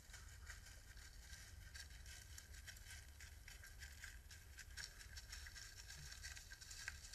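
Near silence: a faint steady low hum with scattered faint ticks.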